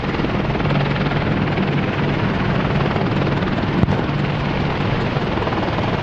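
AH-64 Apache attack helicopter flying low past, its rotor and engine noise steady throughout.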